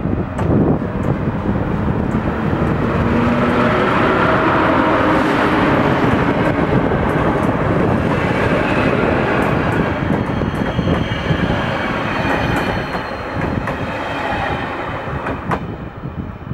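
An EP07 electric locomotive hauling Intercity passenger coaches passes close by on a station track. The train runs past steadily, with the wheels clicking over rail joints, and the noise fades near the end as the last coach goes by.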